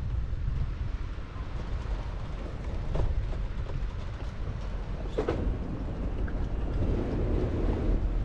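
Steady low rumble of a sailboat under way toward a mooring, mixed with wind buffeting the microphone, with two short knocks about three and five seconds in.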